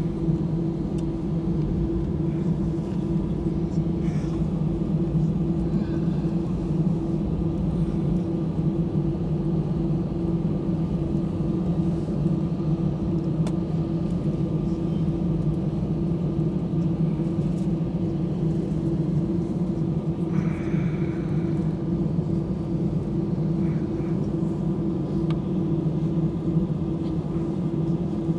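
Cabin noise of an Airbus A319 taxiing: the jet engines at taxi power give a steady hum over a low rumble, heard inside the cabin.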